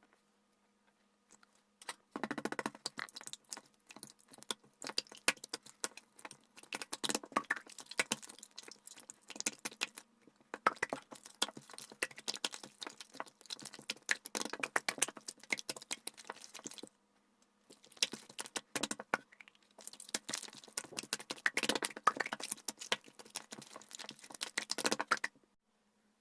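Slime being squished and worked by hand, a dense run of small sticky clicks and crackles, sped up to four times normal speed. It starts about two seconds in, pauses briefly twice in the second half, and stops just before the end.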